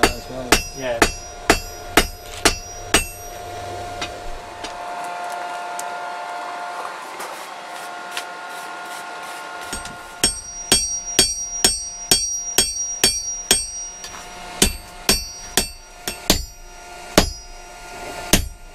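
Blacksmith's hammer striking red-hot steel on an anvil while forging a knife blade: runs of sharp, ringing blows about two to three a second, with a pause of several seconds in the middle.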